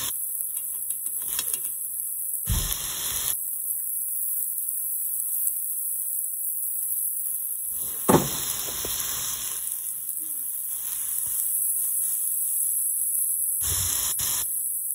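Beef roast searing in a hot pot, sizzling steadily with a high hiss where the poured-in liquid seasoning meets the hot pan. A short sharp knock sounds about eight seconds in.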